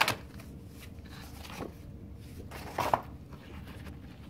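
Printed cardboard cards and paper sheets being handled inside a cardboard box: a few brief rustles and slides, the clearest right at the start and about three seconds in, with quiet between.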